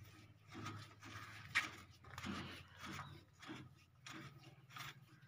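Threaded metal gland of a hydraulic cylinder being screwed onto the cylinder body by hand after a reseal: faint metal-on-metal rubbing and scraping with light knocks, one sharper click about a second and a half in, over a faint steady low hum.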